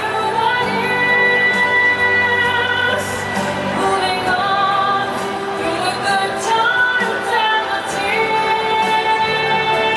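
Music with a woman singing long, held notes over orchestral backing, the notes sliding between pitches.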